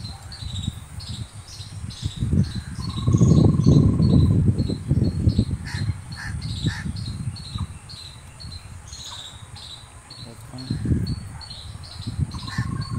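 Insects chirping in a high, repeating pattern, with bursts of low rumbling noise on the microphone that are loudest about three to five seconds in. A short, steady whistle-like tone sounds twice, about three seconds in and near the end.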